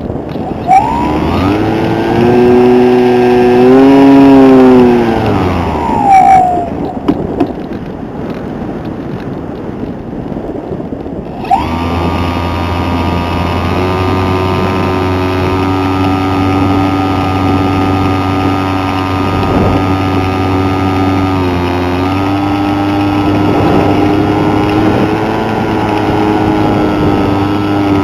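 Radio-controlled aircraft's motor heard from its onboard camera, with wind rushing past. The motor throttles up about a second in, rises in pitch, then winds down about six seconds in, leaving only wind. It comes back in abruptly about eleven seconds in and runs at a steady pitch, dipping briefly and picking up again near the end.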